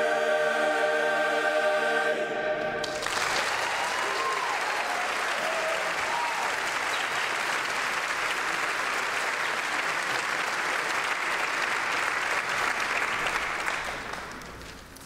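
Men's choir holding the final chord of a gospel song, cut off about two and a half seconds in. The audience then applauds, with a few cheers early on in the clapping, and the applause dies away near the end.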